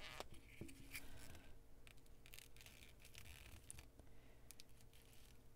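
Near silence with faint, scattered clicks and scratches of small scissors and a ribbon spool being handled while the ribbon is worked free.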